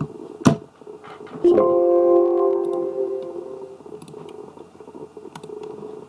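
A sharp click, then about a second later a single pitched computer chime that rings out and fades over about two seconds.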